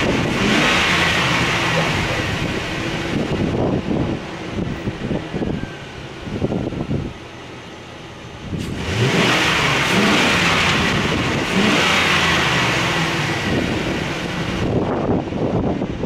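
The 2002 Chevy Silverado's 4.8-liter V8 running while live data is watched, misfiring on several cylinders (3, 4, 5 and 7 among them). A louder rush joins the engine during about the first three seconds and again from about nine seconds until near the end, with a quieter stretch between.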